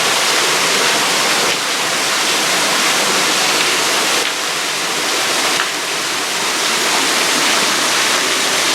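Spring-fed waterfall: a steady hissing rush of falling water, with little deep rumble.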